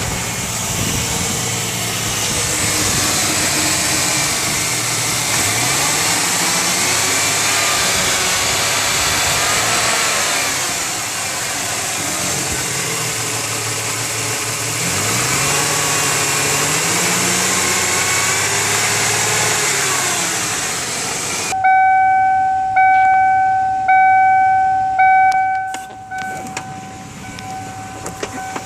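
A 1995 Ford Mustang's 3.8 L V6 running and revved up and back down twice; the owner reports that it knocks at idle and when revved, but not cold or under load. About three-quarters of the way through, the engine sound stops suddenly and a steady electronic beep takes over, pulsing about once a second and then holding.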